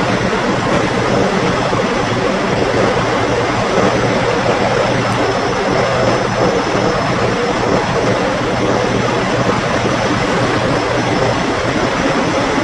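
Diesel semi-truck engine idling: a loud, steady, unchanging drone with a low hum beneath it.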